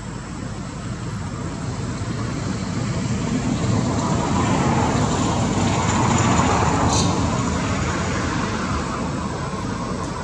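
Road traffic: a vehicle passing by, its noise swelling to a peak about six seconds in and then fading, over a steady low traffic rumble.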